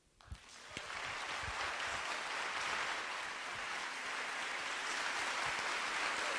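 Audience applauding, setting in suddenly and swelling to full within the first second, then holding steady.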